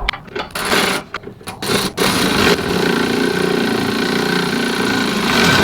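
A power tool's motor running in several short bursts, then steadily for about three seconds before stopping abruptly near the end.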